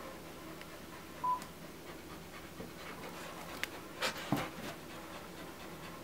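Dogs panting, with a single short high beep just over a second in and a brief cluster of sharp noises around four seconds in as a border collie comes right up to the camera.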